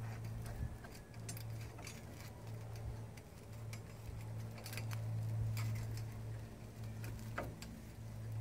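Scattered light metallic clicks and ticks from the wire hooks and frame of a homemade bicycle-sprocket rope-spinning rig as baler twine strands are handled on it, over a steady low hum.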